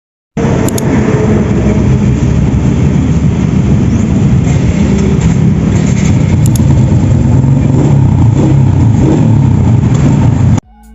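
Loud, steady noise of a moving road vehicle, heavy in the low rumble. It starts abruptly and cuts off suddenly near the end.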